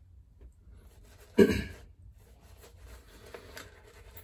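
Faint bristly rubbing of a shaving brush working lather over a stubbly jaw. About a second and a half in comes one short, loud throat noise that fades within half a second.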